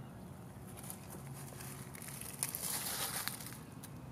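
Dry leaf litter crunching and crackling underfoot, starting about a second in and loudest past the middle.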